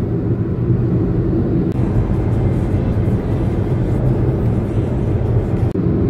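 Steady road and engine noise heard from inside a moving car, a continuous low rumble.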